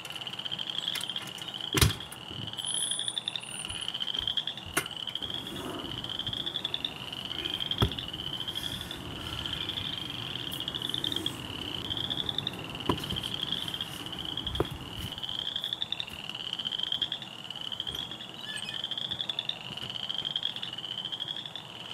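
Night ambience of a calling animal: a high, buzzy, rising chirp repeating about once a second, steady throughout, with a few sharp clicks or knocks scattered among it.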